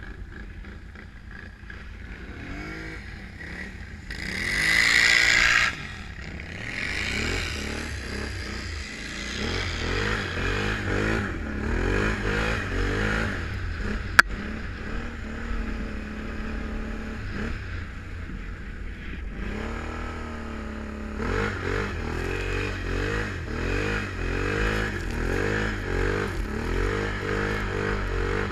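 Can-Am Renegade 1000 ATV's V-twin engine revving up and down while riding through snow. A loud rushing noise comes about four to six seconds in, and a single sharp click near the middle. The engine settles to a steady idle for a few seconds past halfway, then revs repeatedly again.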